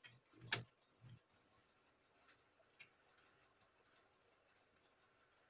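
A few small clicks, the strongest about half a second in, as the plastic snap-in locks of a Dell Inspiron laptop's panel are pried loose with a blade; otherwise near silence.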